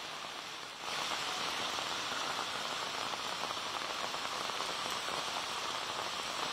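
Heavy rain pouring onto a flooded street, a steady hiss of rain on standing water that steps up in level about a second in.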